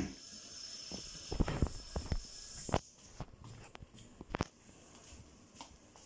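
Footsteps and a few knocks of the phone being handled as someone walks across a hard floor, most of them between about one and a half and three seconds in. A faint high steady tone stops about three seconds in.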